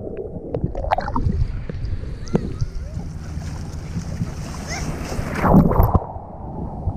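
Sea water sloshing and splashing around a waterproof action camera in shallow surf, with a muffled rumble while the camera is underwater. A louder surge of water comes a little past five seconds in.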